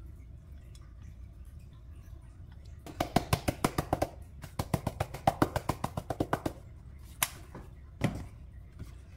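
Plastic spice shaker of dried parsley flakes shaken over a dish in two runs of quick rattling taps, about eight a second, followed by two single knocks near the end.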